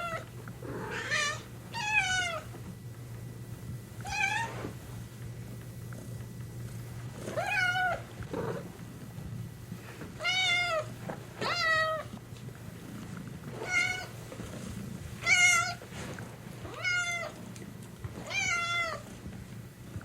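A domestic cat meowing repeatedly: about ten separate meows, one to three seconds apart, each one rising and then falling in pitch.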